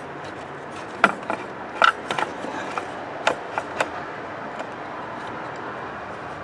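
Scattered light clicks and taps from a test light's probe and lead being handled against metal under the hood, over a steady background hiss. The taps fall irregularly in the first four or five seconds, then die away.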